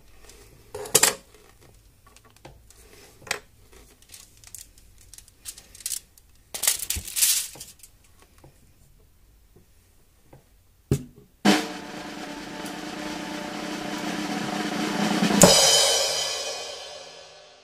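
A few faint clicks and short rustles, then a cymbal swell that builds for about four seconds into a crash, which rings and fades away.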